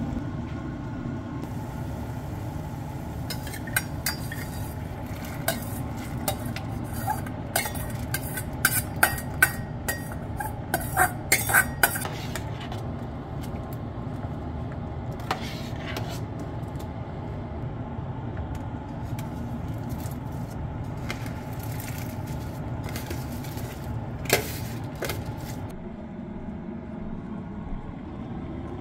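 A metal utensil clinking and scraping against a stainless-steel cooking pan holding rice in water. There is a quick flurry of clinks in the first half and a few single clinks later, over a steady low hum.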